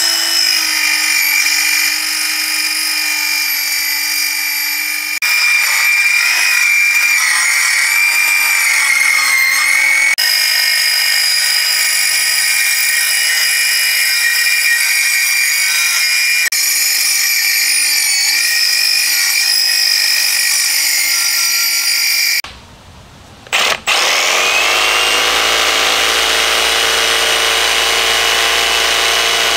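Milwaukee cordless circular saw cutting through a plywood board, its motor whine steady with a slightly wavering pitch under load. About three-quarters of the way through it stops, and a cordless jigsaw spins up and runs steadily.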